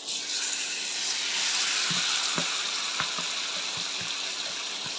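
Mashed, boiled Indian olives (jalpai) hitting hot mustard oil in a non-stick wok: a loud frying sizzle that starts suddenly and carries on steadily, with a few short clicks through it.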